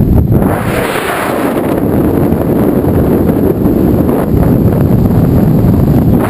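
Loud wind rushing and buffeting over the camera microphone during a tandem skydive freefall, a steady low rumbling roar of airflow.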